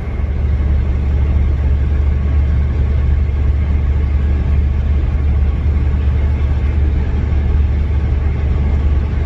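Steady low drone of a semi-truck's engine and road noise heard inside the cab while cruising on the highway.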